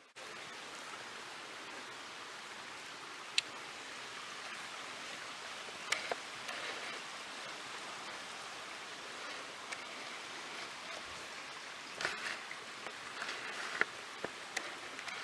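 Steady rushing of a small forest creek, with a few scattered sharp clicks and ticks over it.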